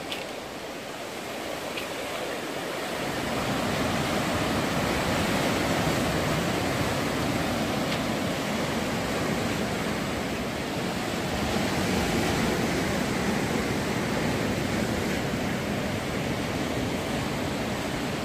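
Sea surf breaking and washing over a rocky shoreline: a steady rushing noise that swells about three seconds in and holds there.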